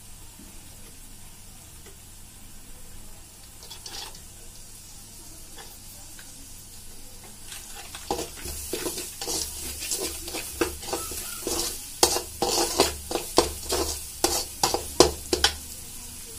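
Masala frying in a metal kadai, a gentle steady sizzle. About eight seconds in, a perforated steel skimmer ladle begins stirring, scraping and knocking against the pan in quick strokes, loudest near the end.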